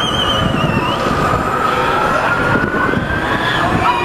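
Riders screaming on a swinging, spinning thrill ride: several long, wavering screams overlap above the low rumble of the ride and crowd.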